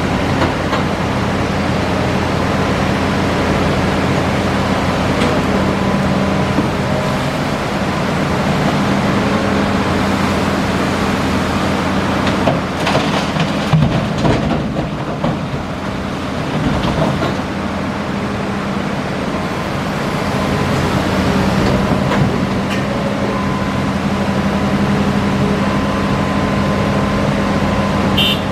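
Hitachi Zaxis 5G excavator's diesel engine running steadily under working load, with a short burst of clattering knocks about halfway through.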